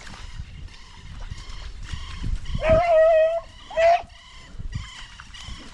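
A hunting beagle baying: one long, held bay about two and a half seconds in, then a short rising one about a second later, over a low rumbling noise.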